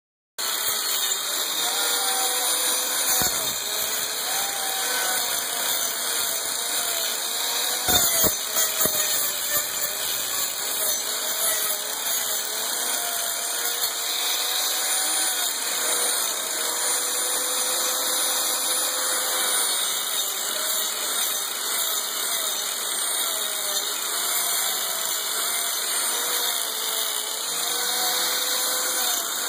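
Harbor Freight electric angle grinder with a cutting blade running steadily while trimming a sheep's hoof, its motor whine dipping and recovering in pitch as the blade bites into the hoof. Two brief sharp knocks, about three seconds in and again about eight seconds in.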